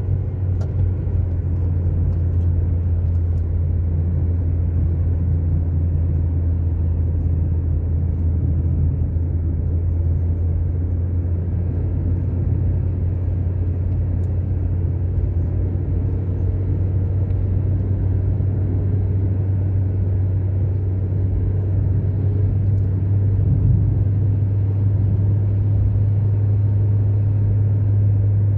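A car driving steadily along an asphalt road: a constant low rumble of engine and tyre noise.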